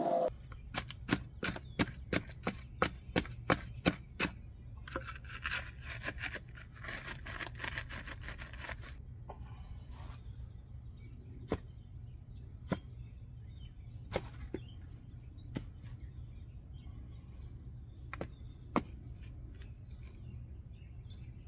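Small hand trowel knocking and scraping as it packs wet concrete into a form under an AC condenser pad. It opens with a quick run of sharp taps, about three a second for roughly four seconds, then scrapes for a few seconds, then gives occasional single knocks over a steady low rumble.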